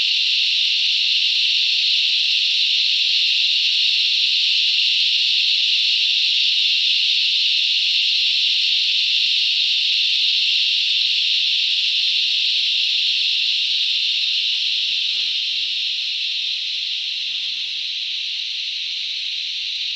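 Deafening chorus of cicadas: a continuous high-pitched shrill drone, easing off slightly in the last few seconds.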